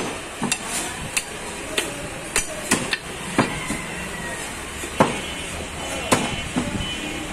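Heavy butcher's cleavers chopping beef on wooden chopping blocks: about a dozen sharp, irregular chops, the loudest about five and six seconds in.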